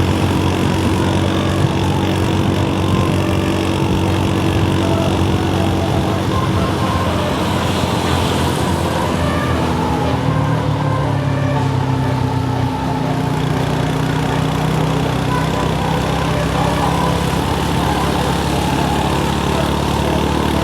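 A bus engine running steadily at a low engine speed. Its note drops about ten seconds in and settles again a few seconds later.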